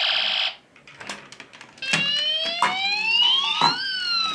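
Toy police van's electronic sound module: a buzzing alarm tone that cuts off about half a second in, then after a short pause a wailing siren that rises and then falls in pitch. A few light clicks from the toy being handled.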